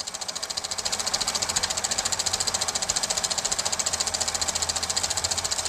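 Rapid, even mechanical clatter of about a dozen clicks a second, growing louder over the first second and then holding steady.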